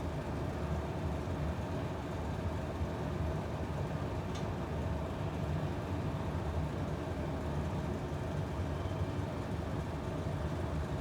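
Steady low rumble of a 7000 series commuter train heard from inside the passenger car, with a faint brief tick about four seconds in.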